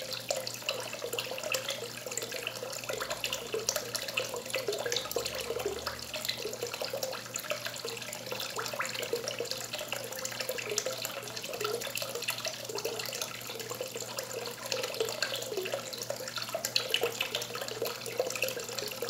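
Thin stream of water pouring from a spout into a small pond, splashing and trickling steadily with a fine crackle of bursting bubbles.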